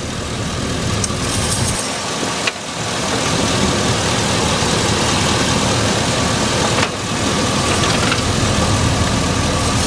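A 2008 Chevrolet Silverado 3500's 6.0-litre gas V8 idling steadily, heard up close in the open engine bay as a dense, even rush with a faint steady hum.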